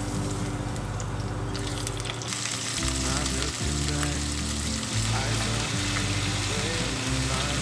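Food frying in a hot pan, a steady sizzle that grows louder about two seconds in.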